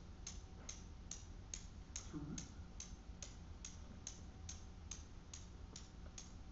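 Newton's cradle swinging with two balls lifted at one end, its steel balls clicking together in an even, regular tick about two or three times a second. Each click is an elastic collision passing the swing through the row to the two balls at the far end.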